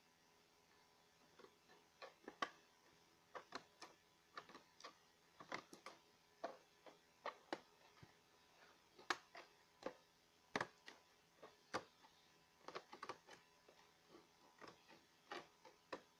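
Scissors snipping into a toy's plastic blister pack, with the plastic clicking and crackling as it is cut and handled: a long run of sharp, irregular clicks, about one or two a second, starting about a second in.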